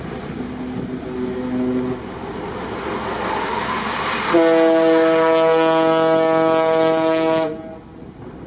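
A ship's horn sounds one long, steady blast of about three seconds over wind and sea noise, starting about halfway in and cutting off sharply. A fainter, shorter horn tone sounds early on.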